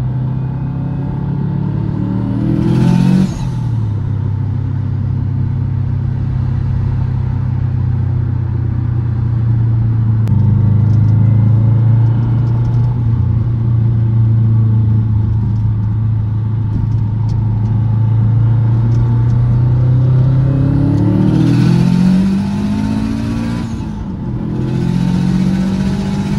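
Big-turbo Subaru WRX's turbocharged flat-four engine under way. Revs rise for about three seconds, then drop off suddenly with a short burst of hiss. The engine holds a steady cruise, then climbs again near the end, breaking off once more with hiss.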